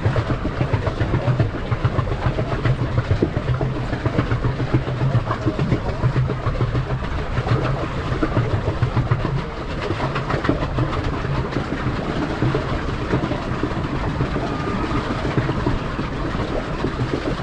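Steady churning and splashing of water against a pedal boat close to the microphone as it moves across the lake, with a constant low rumble underneath.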